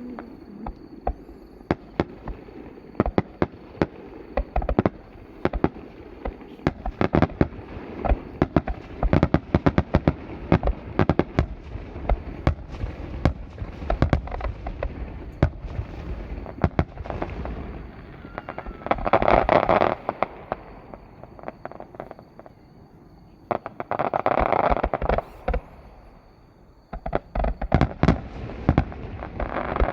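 Fireworks display: a rapid, continuous barrage of shell bursts and crackling reports. Two longer, louder swells of noise come at about twenty and twenty-five seconds in.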